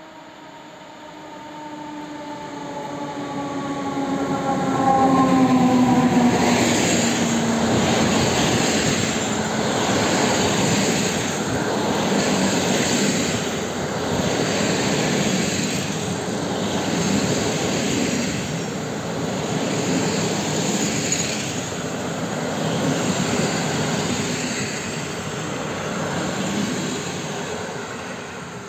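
Electric locomotive hauling a passenger train passes close by. Its whine glides down in pitch as it approaches and goes past about five seconds in. Then come the rumble and clatter of the coaches rolling by, swelling about every two seconds as each coach passes, and fading near the end.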